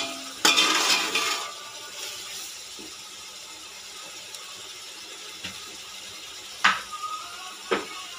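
A metal ladle stirring liquid in a metal pot, scraping and clinking against the sides in the first second and a half, then two sharp metal knocks near the end as the ladle is tapped and set down.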